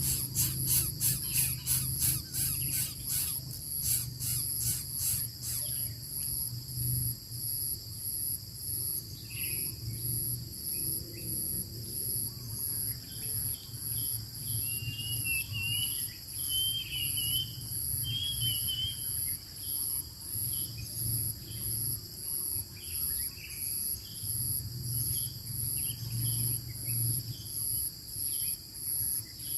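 A steady, high-pitched chorus of insects such as crickets or cicadas, with a pulsing edge. For the first five seconds a run of rasping strokes, about three a second, rises over it. Thin, wavering bird chirps come in about midway.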